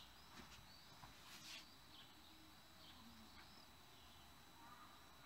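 Near silence: faint bird chirps, several short calls, with a brief soft hiss about a second and a half in.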